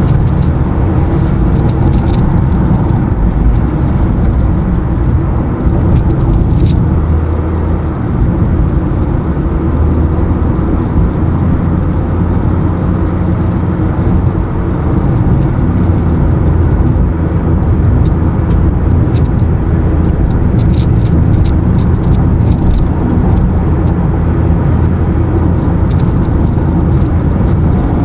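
Car driving along a highway: steady engine and tyre-on-road rumble, with a few short ticks now and then.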